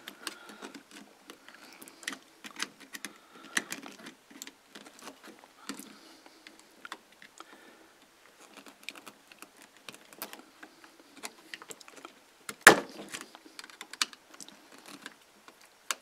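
Small scattered clicks and taps of wire-handling work on a plastic self-contained mobile-home light switch, with a screwdriver, as the wires are pushed into its terminals. One sharper knock comes about two-thirds of the way through.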